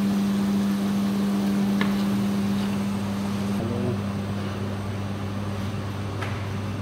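Steady low machine hum that shifts to a deeper tone a little past halfway, with a couple of faint clicks.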